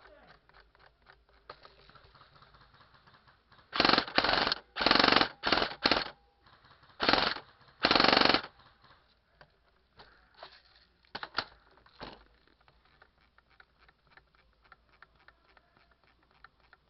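Airsoft gun firing in about seven short full-auto bursts over some four seconds, then a few single sharp cracks.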